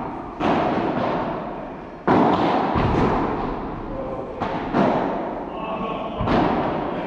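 Padel rally: the ball is struck by the rackets and bounces on the court, making about six sharp hits a second or so apart. Each hit echoes in the large hall.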